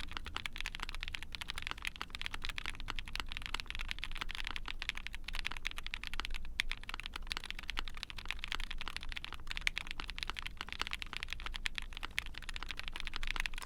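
Continuous fast typing on a mechanical keyboard: an Ai03 Vega with a POM plate, GMK keycaps and lubed Tecsee Strawberry Milk linear switches with long-pole POM stems, giving a dense run of key clacks.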